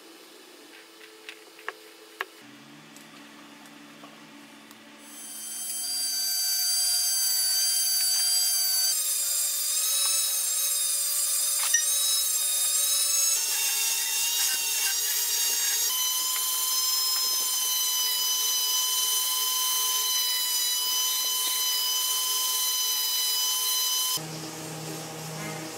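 Rotary tool with a small cutting disc cutting lines into a copper fitting: a loud, high, steady whine that shifts in pitch abruptly a few times and stops suddenly near the end. Before it starts, a few faint clicks.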